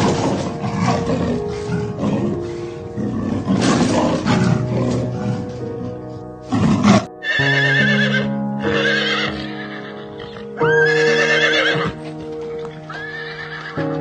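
Horse whinnying about four times in the second half, high wavering calls, over steady background music. The first half holds a dense, rough, noisy sound.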